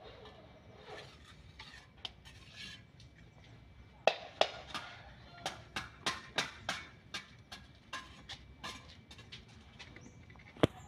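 A run of sharp clinks and taps on ceramic tile, a few a second, while a mortar-backed wall tile is handled and set in place on a concrete slab, ending with one louder knock.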